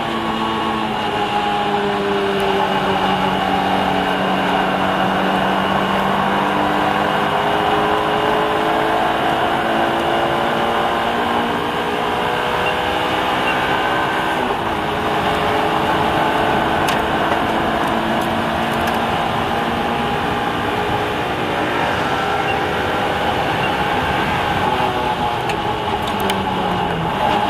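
Car engine running hard on a race track, its pitch climbing and falling with throttle and gear changes, over tyre and wind noise. The revs drop in a falling glide shortly before the end.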